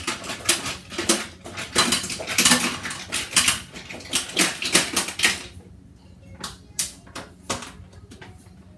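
Dishes and utensils clattering in a stainless steel sink as they are washed. A quick run of knocks and clinks lasts about five seconds, then comes a few scattered clinks.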